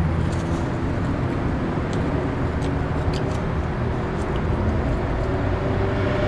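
Steady low rumble of passing street traffic, with a few light clicks of a fork against a plate.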